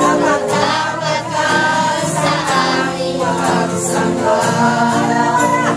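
Group singing a Tagalog worship song with sustained instrumental accompaniment.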